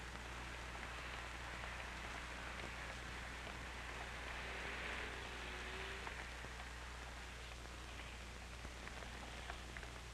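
Steady hiss and low hum of an old film soundtrack, with faint scattered crackles and a slight swell of faint noise around the middle.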